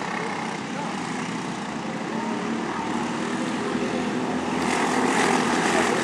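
Racing kart engines buzzing steadily as the karts run around the circuit, growing louder and brighter about two-thirds of the way through.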